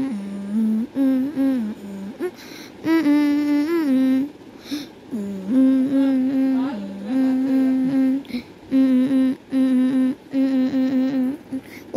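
A voice humming a simple tune: held notes that step up and down in pitch, in short phrases with brief breaks between them.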